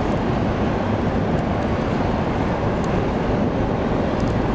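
Car ferry BLUELINE's diesel engines running hard in a steady, even rumble as the ship manoeuvres to berth, working under heavy load while its funnel pours black smoke. A few faint ticks from the camera lens's autofocus motor sound over it.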